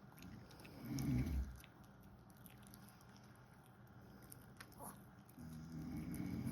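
A sleeping pet snoring: two low snores, a short one about a second in and a longer one near the end, with faint scattered clicks between.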